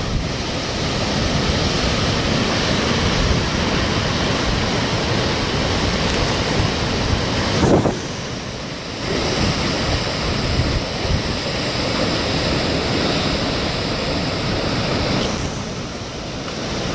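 Hurricane wind and rain: a steady, loud rush of noise with wind buffeting the microphone. It eases briefly about eight seconds in, then picks up again.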